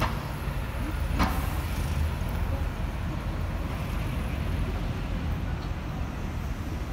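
A steady low vehicle rumble, with a single sharp click a little over a second in.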